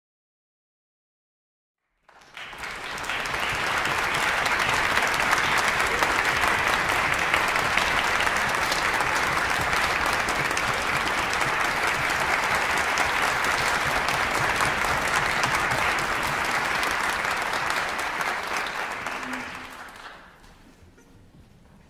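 Audience applauding steadily, starting about two seconds in and fading away near the end.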